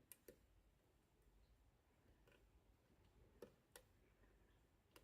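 Near silence with a few faint, scattered metallic ticks: a hook pick working the pin stack of a Lockwood padlock under tension, feeling for pins to set.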